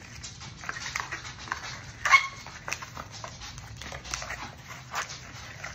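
A dog gives one short, high whimper about two seconds in, amid scattered light clicks.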